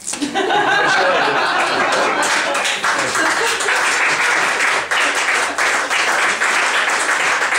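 An audience laughing loudly together at a joke, with scattered clapping mixed in.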